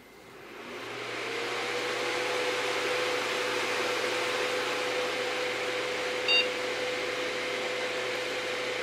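Packard Bell iMedia S3720 desktop PC powering on: its fans spin up over about a second and a half and then run at full speed, loud, with a steady tone in the whoosh. A short single POST beep sounds about six seconds in, the sign that the system is posting.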